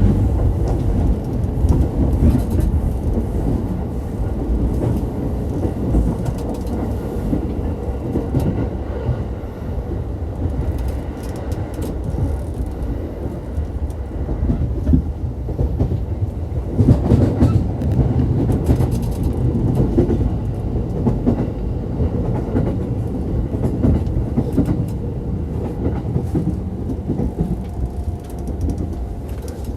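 Chuo-Sobu Line local electric train running, heard inside the passenger car: a steady rumble of wheels on rail with some clickety-clack, growing louder for a few seconds a little past halfway.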